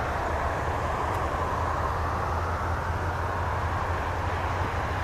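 Airbus A319-132 airliner on final approach, its IAE V2500 jet engines heard from a distance as a steady, even rushing noise with a low hum underneath.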